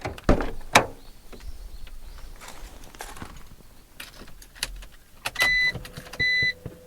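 A few clicks and knocks at the car, then from about five and a half seconds a 2003 BMW Z4's electronic warning chime beeping, a high beep repeating about every 0.8 seconds over a faint steady hum. There is no sound of the engine cranking: the car is not even trying to start.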